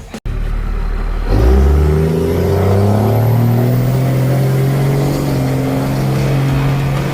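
An engine revving up over about two seconds and then holding at a steady high speed, after a brief cut-out near the start.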